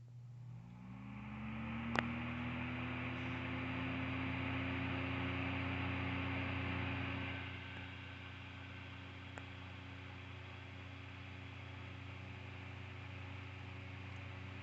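Holmes 10-inch box fan starting up on its high setting: the motor hum rises in pitch as the blades spin up over the first few seconds, then settles into a steady hum under the rush of moving air. There is a single click about two seconds in, and the sound drops in level at about seven and a half seconds.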